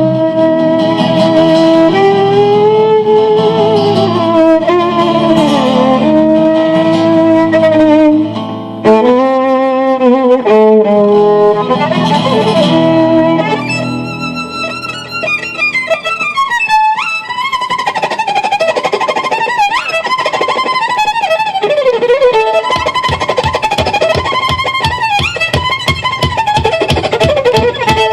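Violin-led band playing a gypsy-style tune: the violin first draws long sliding notes with vibrato and a quick trill, then breaks into fast fluttering runs, with a rapid, even strummed rhythm joining in under it about two-thirds of the way through.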